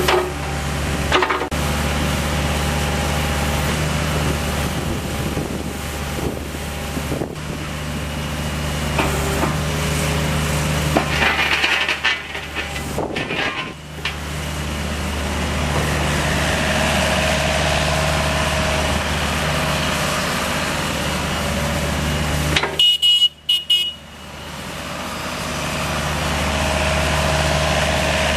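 John Deere 50D mini excavator's diesel engine running steadily, with higher tones coming and going over the engine hum as the machine is worked. The sound cuts out briefly about 23 seconds in.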